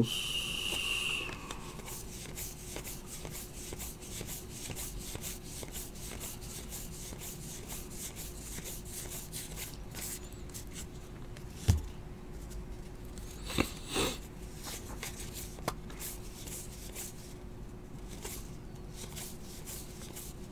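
Stack of baseball trading cards being thumbed through by hand: card edges sliding and rubbing against each other in a run of soft light strokes, with a few sharper taps near the middle. A short high tone sounds right at the start, over a faint steady hum.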